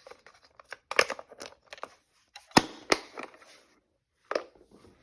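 Hand tools and a plastic case being handled in a tool tote: a run of clicks and rattles, with two sharp snaps a little over halfway through and another knock near the end.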